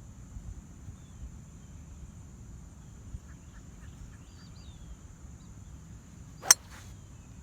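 A golf club strikes a golf ball in one sharp, loud crack about six and a half seconds in, a solid strike. Wind rumbles on the microphone, with faint bird chirps midway and a steady high insect hiss.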